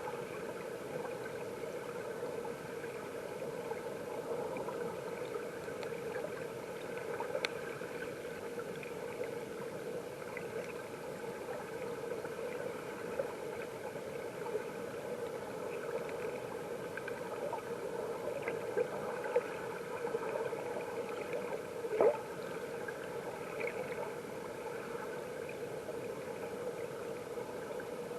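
Mountain stream water flowing, heard through an underwater camera: a steady muffled rush with a few sharp clicks, the loudest about three quarters of the way through.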